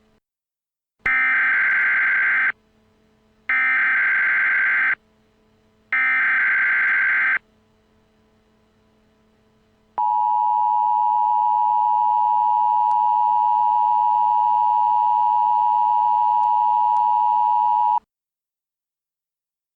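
Emergency Alert System alert tones: three short bursts of SAME header data tones, each about a second and a half long, then the steady two-tone attention signal held for about eight seconds before it cuts off.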